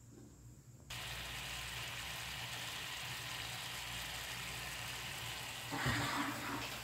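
Sugar caramelizing in a nonstick frying pan, melted and bubbling with a steady sizzling hiss that starts abruptly about a second in. Near the end a wooden spatula stirs it with a brief louder scrape and knock.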